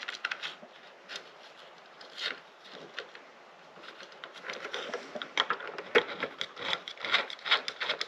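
Small clicks, taps and scrapes of fingers working a small nut onto a pull-chain switch's threaded stem in a plastic light end cap, sparse at first and busier from about halfway through.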